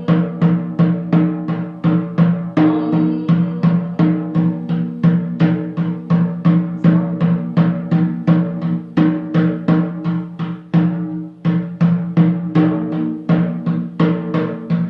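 Steady, fast drumming on a pitched, deep-ringing drum, about three to four strokes a second, with a short break about eleven seconds in.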